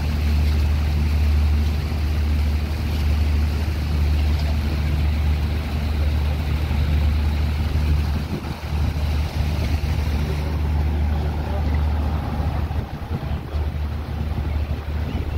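Steady low rumble of road traffic mixed with wind buffeting the phone's microphone, easing slightly at times.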